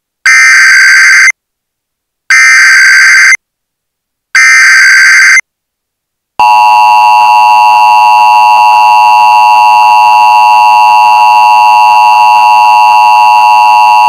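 Emergency Alert System SAME header: three buzzing data bursts of about a second each, a second apart, then the long steady EAS attention tone, which sets off a child abduction (AMBER) alert.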